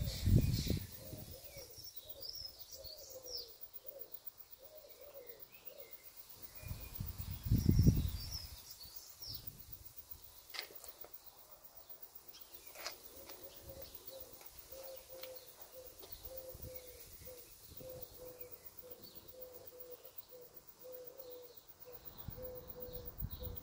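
Garden birds calling: scattered high chirps over a lower call repeated in short notes, several a second, that runs more steadily through the second half. Three loud low rumbles on the microphone come at the start, about eight seconds in, and at the end.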